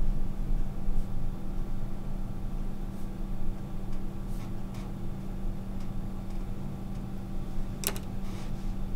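Steady low room hum with a constant tone. A few faint scratches of a pen writing on a clipboard come midway, and a sharp click sounds near the end.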